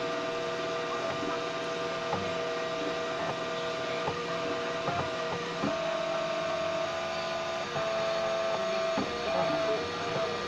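Stepper motors of a homemade 3D printer running during a slow PLA print, a steady tonal hum whose notes stop and change every second or so as the print head changes direction, with faint clicks.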